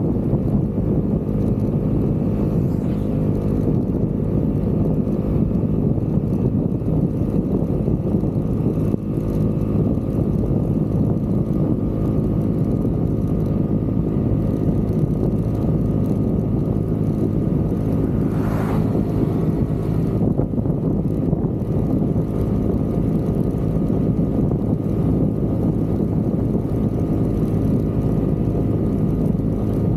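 Vespa GTV 300 scooter's single-cylinder four-stroke engine running steadily at cruising speed.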